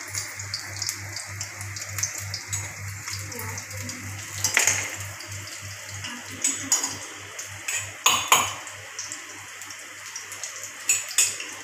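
Pakoras sizzling in hot oil in a steel kadhai with a steady hiss, while a metal slotted spoon clinks against the pan several times as they are turned.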